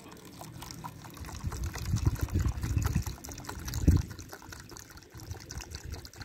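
Cat crunching dry kibble, a run of fine clicks, under a low rumble that swells from about one and a half seconds in and peaks near four seconds.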